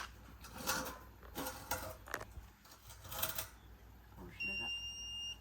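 Electronic beep: one steady high-pitched tone held for about a second near the end, after a few seconds of scattered clatter and faint voices.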